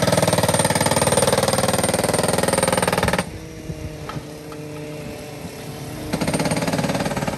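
A hand-held power track tool hammering rapidly and steadily, as in tie replacement work. It cuts off suddenly about three seconds in, leaving a quieter stretch with a steady engine hum and a couple of light clicks, and the hammering starts again near the end.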